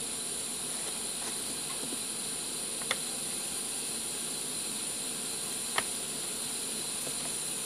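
Small gas burner under a model steam boiler hissing steadily as it burns at full flame, with two short clicks about three and six seconds in.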